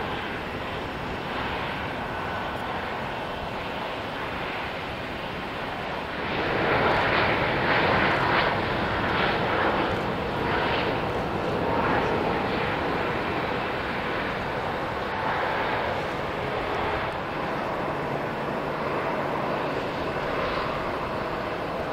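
Twin-engine jet airliners heard from beside the runway: steady jet engine noise that grows louder about six seconds in and eases off again a few seconds later.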